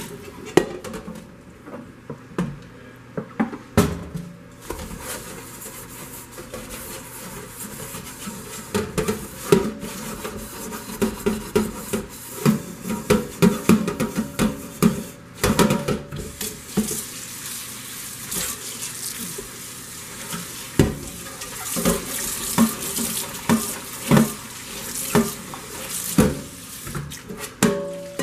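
Scouring sponge scrubbing a stainless-steel Instant Pot inner pot in a stainless-steel sink, in quick uneven rubbing strokes with water splashing and a few sharp metal knocks as the pot is moved against the sink.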